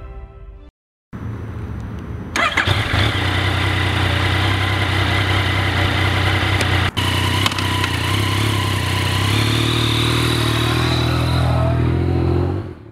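Yamaha MT-09's 847 cc three-cylinder (CP3) engine running steadily. The pitch climbs a little near the end before the sound cuts off.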